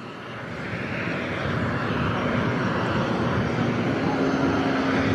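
Jet airliner's engines running as it taxis, a steady rushing noise that swells over the first second or so. A steady low hum joins about four seconds in.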